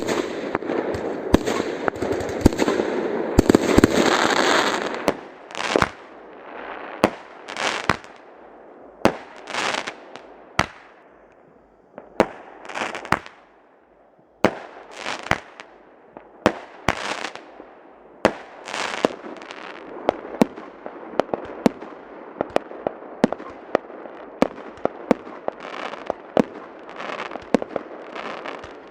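Fireworks display going off: a dense crackling barrage for the first few seconds, then a long run of separate sharp bangs, some with a brief swelling hiss just before them, easing to a short lull about halfway before picking up again.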